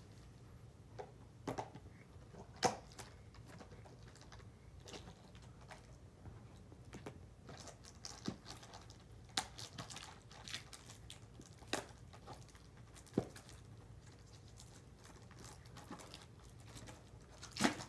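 Scattered clicks, taps and crinkles of a cardboard trading-card blaster box and its wrapping being opened by hand, with a few sharper clicks among them.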